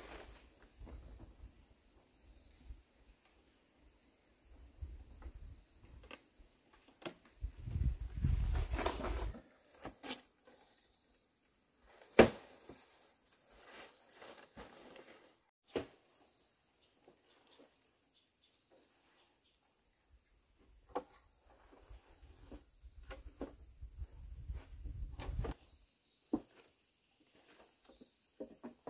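Insects chirping in a steady high drone, with rustling of leaf thatch, scattered knocks of bamboo poles and stretches of low rumble as someone moves about on a thatched roof. The sharpest knock comes about twelve seconds in.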